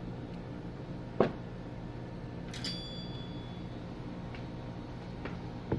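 Small tools handled on an electronics repair bench over a steady low hum: a sharp click about a second in, a small metallic clink with a brief high ring midway, and another click near the end.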